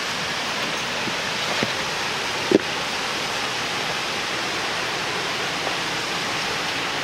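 Steady rush of a flowing stream, an even hiss of moving water. A single brief thump about two and a half seconds in.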